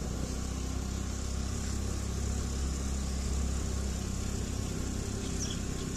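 Motor vehicle engine running steadily with road noise while travelling along a rough road.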